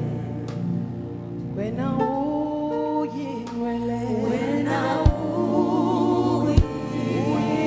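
Gospel choir singing with vibrato over sustained keyboard chords, with two short low thumps in the second half.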